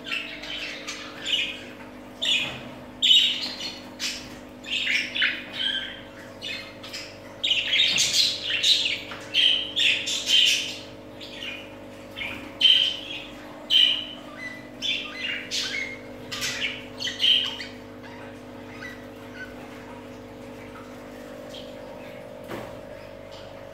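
Budgerigars chirping and squawking in many short, quick calls, which thin out to a few faint chirps about three-quarters of the way through. A steady low hum runs underneath.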